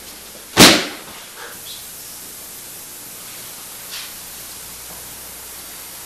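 A body thrown down onto the aikido mat: one sharp slap about half a second in, then only steady hiss.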